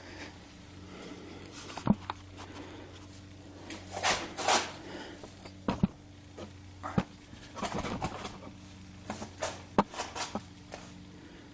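Scattered sharp metal knocks, clicks and short scrapes of a starter motor and tools being handled and worked into place under a car, over a steady low electrical hum.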